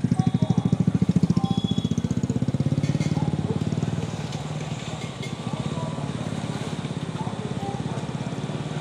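A motorcycle engine idling close by with a rapid, even throb, loudest for the first four seconds and then a little quieter, while an electric local train crosses the bridge overhead.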